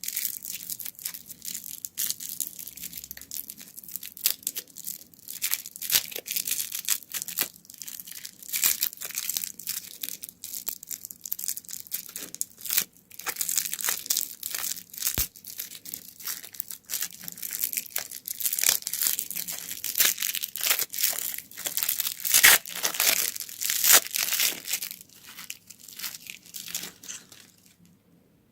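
Candy wrappers crinkling and tearing as they are unwrapped by hand: a dense run of crackles, loudest in the second half, stopping just before the end.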